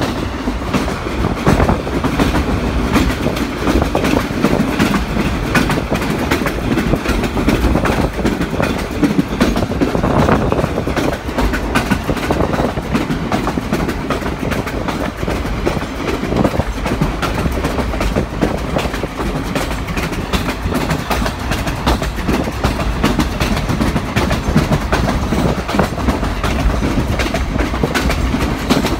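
Passenger train running at speed: a steady rumble with the clickety-clack of the carriage wheels on the track, heard at an open carriage window.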